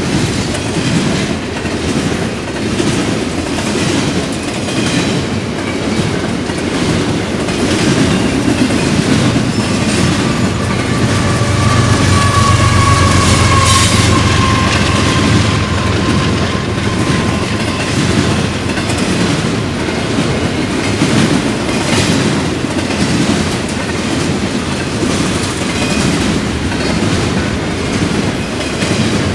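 Intermodal freight train cars rolling past: a steady clickety-clack of wheels over rail joints. About halfway through there is a thin squeal that slides slightly lower.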